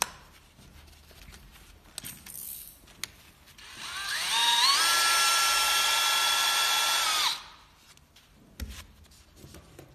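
Power drill running with a Sigma rivet nut drill adapter fitted, spinning freely with no rivet nut on the mandrel: its motor whine climbs in pitch as it spins up, holds steady for about three seconds, then cuts off. Small clicks from handling come before it, and a thump comes after.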